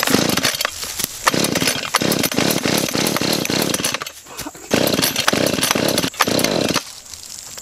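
Small gas chainsaw being pull-started on the ground, its engine catching in three short bursts and dying between them, a saw that is hard to start.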